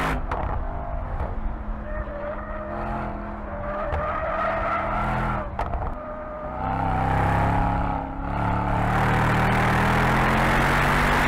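Mercedes-AMG E63's 4.0-litre twin-turbo V8 under power while the sedan slides, its tyres squealing through the drift. The engine note gets louder and holds steady over the second half.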